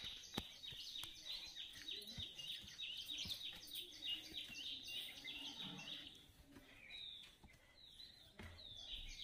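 Birds chirping in a rapid series of short falling calls, several a second, thinning out for a couple of seconds near the end, with a few sharp knocks from the phone being handled.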